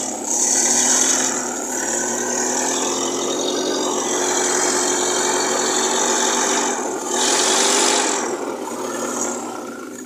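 1946 Conveyancer forklift's four-cylinder petrol engine running steadily just after start-up, its spark timing freshly advanced; it sounds pretty good. Its speed and loudness rise and fall a little, loudest about seven seconds in.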